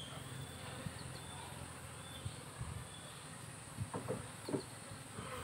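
Asian honey bees (Apis cerana) buzzing faintly around an opened hive, with a few soft knocks near the end.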